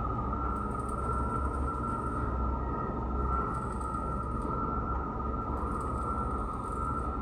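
Steady machinery running: a continuous low rumble with a constant high whine held on one pitch.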